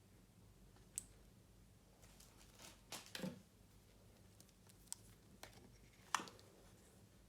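Faint handling sounds of headphones and their packaging: a few sharp clicks, with a short rustle and scrape about three seconds in.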